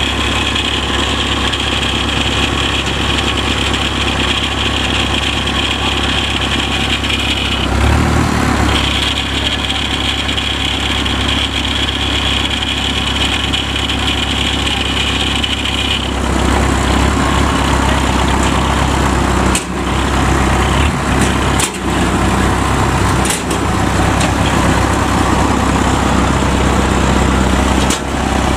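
Engine of a tracked farm tractor running steadily close by, with a high whine over it for roughly the first half; after that the low engine sound grows heavier and a few sharp knocks come through near the end.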